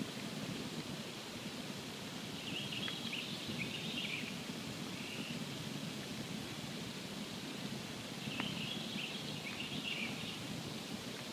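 Campfire burning with a steady low hiss and a couple of sharp pops, while a small bird twitters in two short bursts, about two seconds in and again about eight seconds in.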